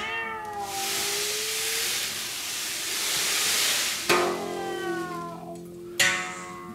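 Live acoustic music from handmade stage instruments: sharp-attacked ringing tones at the start, about four seconds in and again two seconds later. A loud, steady hiss fills the gap between the first two for about three seconds.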